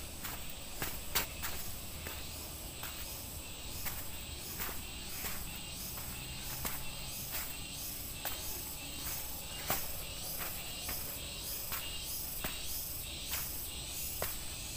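Footsteps of a person walking steadily downhill on a dirt trail with steps of soil-filled tyres, about one and a half steps a second. Behind them runs a steady high buzz of insects.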